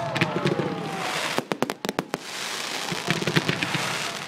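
Fireworks display: a dense crackling fizz with clusters of sharp bangs, and falling whistles that die away about a second in.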